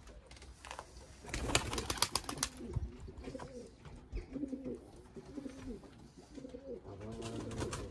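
Domestic pigeons cooing over and over, with a brief loud clatter about a second and a half in and a smaller one near the end.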